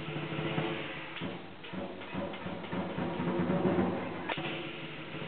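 Lion dance percussion, a Chinese drum with clashing cymbals, playing a busy, continuous beat, with a few sharp strikes standing out.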